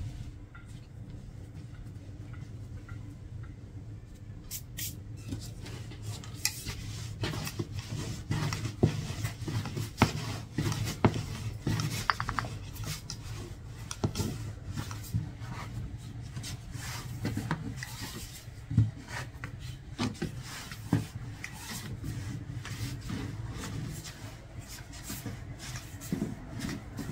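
Kitchen food-preparation sounds: irregular clicks, knocks and scraping of utensils and dishes over a steady low hum, starting a few seconds in.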